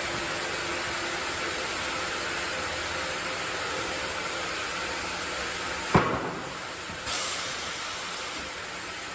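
Sawmill machinery running with a steady hiss, broken by a single sharp knock about six seconds in; the sound changes abruptly a second later.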